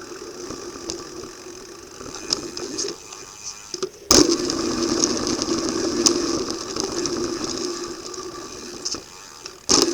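Mountain bike descending a freeride course, heard from the rider's helmet camera: freehub ratchet clicking and the bike rattling over dirt and rock, with a hard thud of a landing about four seconds in and another near the end.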